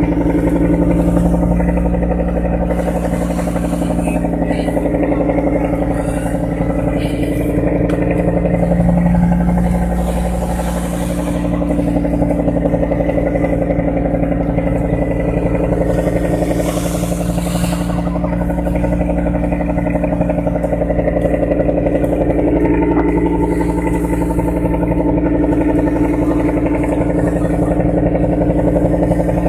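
Fishing boat's inboard engine running steadily under load, a low, even drone, with a brief hissing rush about 17 seconds in.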